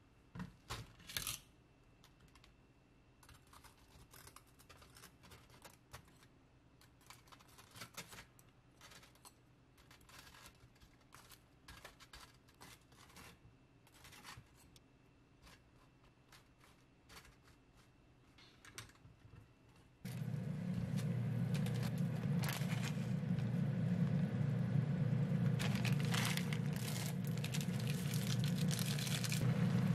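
Scattered light clicks and taps of chopsticks and metal tongs on bread and an air-fryer wire rack. About twenty seconds in, a steady rumble of a pot of instant noodles boiling on an induction cooktop starts abruptly, with crinkling from a seasoning packet being emptied into it near the end.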